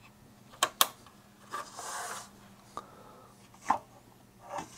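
Handling noise from a metal-cased bench multimeter being gripped and turned on a workbench: two sharp clicks just under a second in, a scraping rub about two seconds in as the case slides, then a light tick and two knocks near the end.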